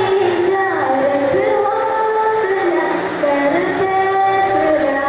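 Children singing a melody in long held notes that slide from pitch to pitch.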